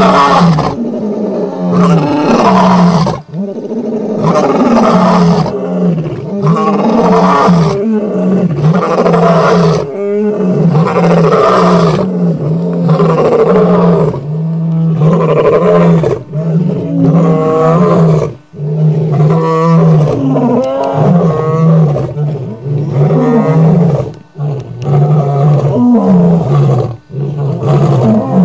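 Several male lions roaring together at close range: a long, overlapping chorus of deep roars and grunts, pulsing about once a second, with only a few brief breaks.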